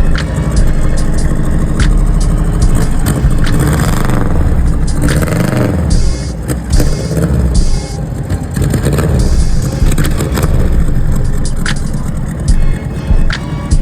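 A 1971 Saab Sonnet's Ford V4 engine running, its pitch rising and falling once around the middle as it is revved, with scattered clicks and knocks over it.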